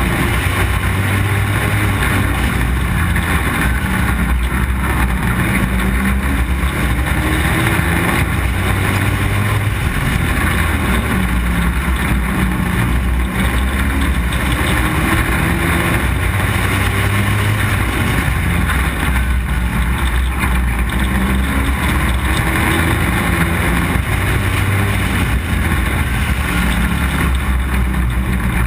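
Street stock race car engine running hard, heard from inside the car, its pitch rising and falling over and over as the car accelerates and lifts around the oval.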